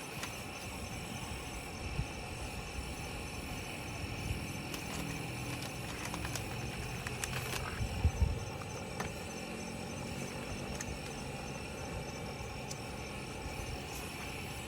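Steady insect chorus droning in a rainforest, one high call pulsing rapidly, with a few dull knocks about eight seconds in.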